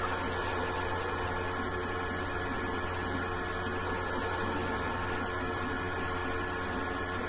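Steady background hum and hiss with a few constant tones, with no distinct events.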